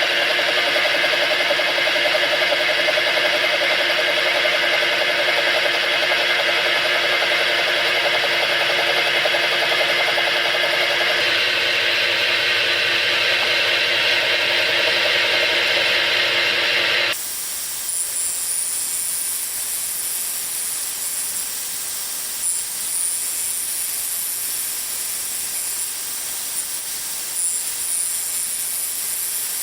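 Milling machine running, its Module 1 gear cutter cutting teeth into a chuck-key blank of hard steel under slow power feed: a steady mix of machine tones. About 17 seconds in this sound cuts off abruptly, leaving a quieter high hiss.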